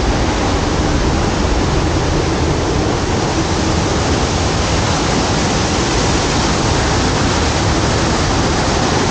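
Waterfall rushing close by: a loud, steady noise of falling water with no change or let-up.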